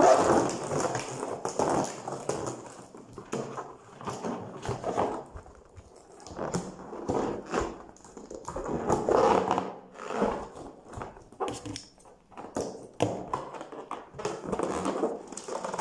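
Inflated latex balloons squeaking and rubbing under the hands in irregular bursts as a small balloon is pressed into a larger one.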